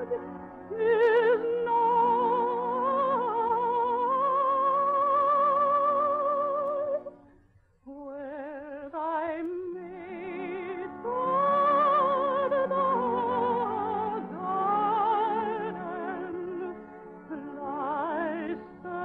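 A high operatic voice, a soprano, sings long sustained notes with a wide, even vibrato over soft orchestral accompaniment. The singing breaks off briefly about seven to eight seconds in, then resumes.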